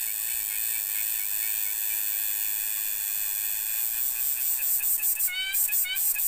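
A steady, high-pitched chorus of insects buzzing. From about five seconds in, an animal joins with a short rising call repeated about twice a second.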